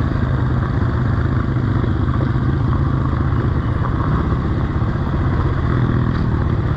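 Honda CRF230F dirt bike's single-cylinder four-stroke engine running at steady low revs, engine braking to slow the bike.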